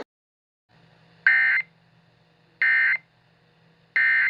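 Emergency Alert System end-of-message (EOM) data bursts: three short, identical bursts of digital data tones about 1.3 s apart, the coded signal that closes an emergency alert.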